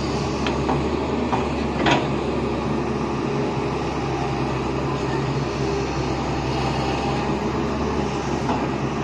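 Diesel engine of a Tata Hitachi hydraulic excavator running steadily under load while its bucket digs in wet mud, with a sharp knock about two seconds in.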